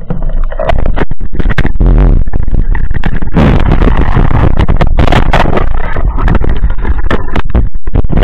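Underwater camera-housing noise as a spearfisher swims down along a rocky bottom: loud muffled water rushing with many sharp knocks and clicks, jumping up in level a little under a second in.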